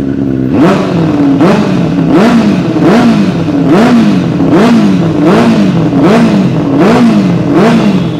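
Benelli 600i inline-four motorcycle engine idling, then revved through an aftermarket exhaust in about ten quick throttle blips, each rising and falling in pitch.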